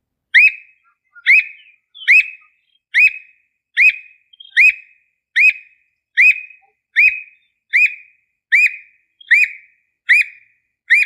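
Squirrel cuckoo (alma-de-gato) calling: a steady, even series of short, sharp, rising whistled notes, about five every four seconds.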